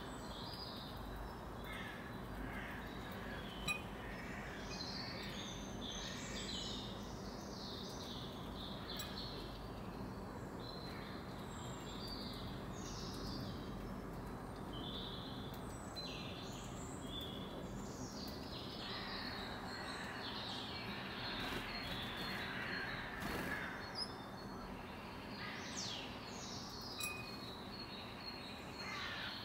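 Birds chirping and calling outdoors, many short high calls coming and going over a steady background noise, busier in the second half. A single sharp click about four seconds in.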